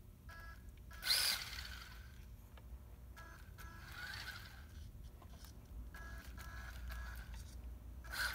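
Small electric motor of an RC truck whining in short throttle bursts, about six in all, each a steady high whine. The loudest, about a second in, comes with a rushing hiss.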